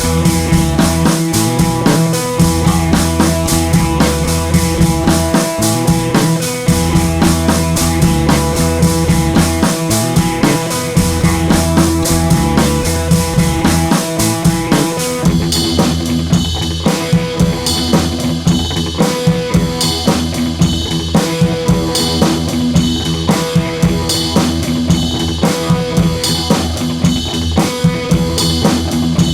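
Background rock music with a steady drum-kit beat; about halfway through it changes to a sparser section with the drums to the fore.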